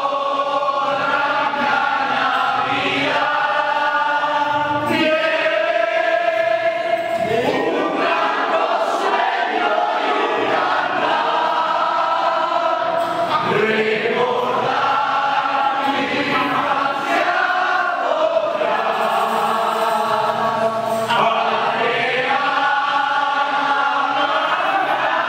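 A group of adults singing together in unison, chant-like, in phrases of long held notes.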